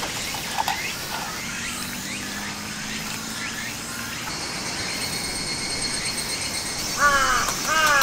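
Crows cawing: faint arched caws in the first few seconds, then a run of loud caws near the end. A steady high-pitched thin tone sits underneath from about halfway.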